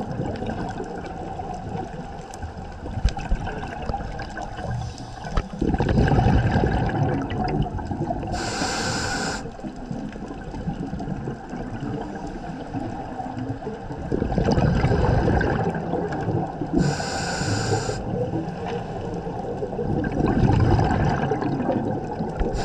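Scuba diver breathing through a regulator, heard underwater: a short high hiss of inhaled air twice, about nine seconds apart, alternating with longer low bubbling of exhaled air.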